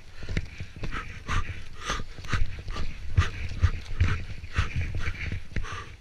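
Snowboard base and edges scraping and chattering over hard-packed groomed snow, heard through a GoPro Hero3+ housing: irregular knocks and scrapes several times a second over a low rumble.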